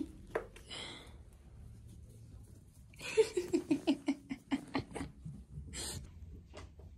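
A woman laughing: a quick run of breathy 'ha' pulses, falling in pitch, starting about three seconds in and lasting about two seconds.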